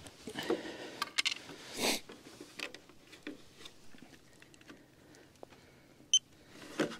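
Handling noise of rustling clothing and light scrapes and clicks as a hand reaches into an RC plane's battery bay and plugs a LiPo cell checker onto the battery lead. About six seconds in, the checker gives one short, high electronic beep.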